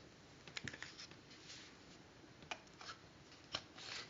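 Near silence with a few faint, scattered clicks and a soft brief hiss near the end.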